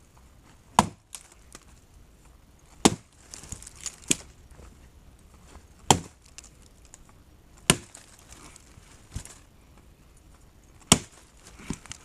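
Gränsfors Bruks Scandinavian Forest Axe chopping into a log: five hard, sharp strikes two to three seconds apart, with a few lighter knocks between them.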